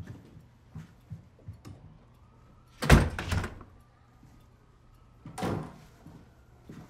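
A door shutting with a heavy thunk about three seconds in, followed by a second, softer thud about two and a half seconds later. A few faint taps come before and between them.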